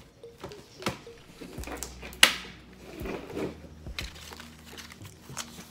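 Paper cash envelopes and bills being handled: light rustling and small clicks, with one sharp click about two seconds in.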